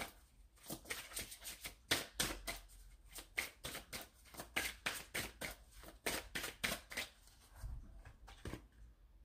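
A deck of oracle cards being shuffled by hand: an uneven patter of soft card slaps and flicks, several a second, thinning out near the end.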